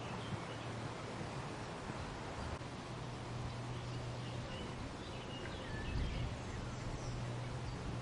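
Wind blowing through a weeping willow, its leaves rustling steadily, with a low rumble of a gust about six seconds in. A few faint, short high chirps come through in the middle.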